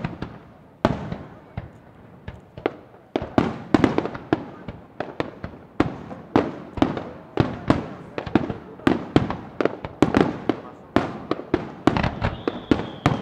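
Aerial fireworks shells bursting over water in a rapid string of sharp bangs, a few spaced out at first and then coming thick and fast from about three seconds in. Near the end a thin high whistle starts and slowly falls in pitch.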